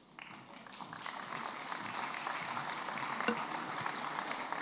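Audience applauding in a large hall, the clapping swelling over the first second or two and then holding steady.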